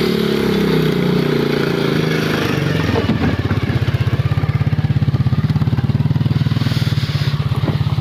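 Motorcycle engine running as it pulls a loaded wooden cart away. From about three seconds in, its exhaust comes through as a rapid, even pulsing beat.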